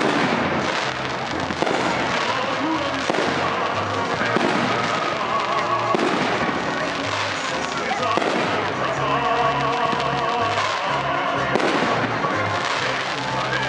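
Fireworks shells bursting overhead in repeated bangs and crackle, with music playing underneath.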